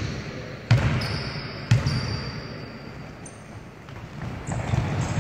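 Basketball bounced twice on a hardwood gym floor about a second apart, the pre-shot dribbles of a free-throw shooter, each thud ringing briefly in the hall.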